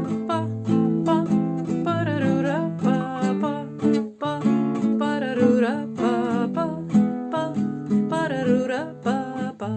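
Instrumental introduction to a song: strummed acoustic guitar chords, with a melody line above them that slides and wavers in pitch.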